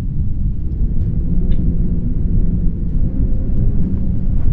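A loud, steady deep rumble with a faint held tone above it, the intro's storm-like sound effect.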